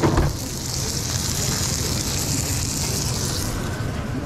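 A beef burger patty sizzling on a flat-top griddle, a steady hiss that drops away near the end, over a steady low hum. A couple of sharp metal knocks right at the start.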